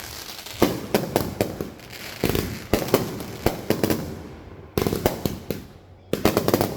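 Consumer fireworks going off in quick succession: sharp bangs and bursts of crackling, each fading out in an echo, with a dense crackling volley near the end.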